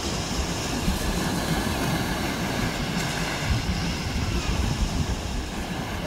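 Wind buffeting the microphone in a steady low rumble, over small waves washing against the rocks of the shore.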